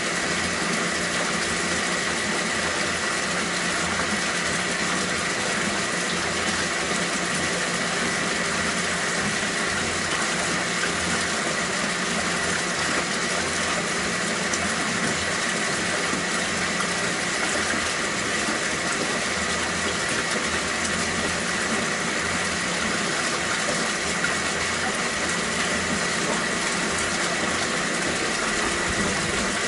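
Steady hum of a water pump with water running, as from an aquaponics system's circulation, with a faint steady high tone over it.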